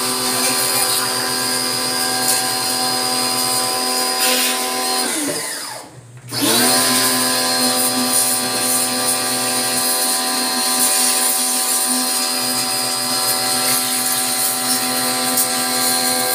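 Small electric pressure washer's motor and pump running with a steady hum. About five seconds in it winds down and stops, then spins back up within a second and runs steadily again.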